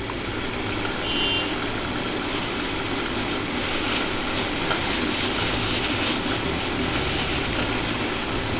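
Steady rushing hiss with a low rumble underneath, from a stovetop idiyappam steamer boiling over a high flame, its lid just lifted off.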